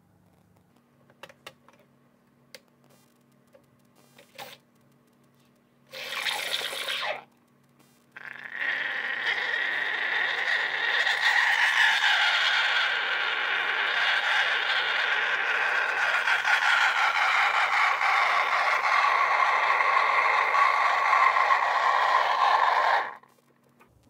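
BlitzWolf BW-CMM2 espresso machine's steam wand hissing: a short burst about six seconds in, then steady steaming into a glass of coffee from about eight seconds in, cut off suddenly about a second before the end. A few light clinks of a spoon come first.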